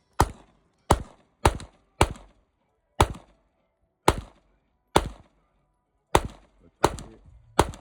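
Gunshots: about ten single shots fired one at a time, half a second to a second apart, each with a short trailing echo.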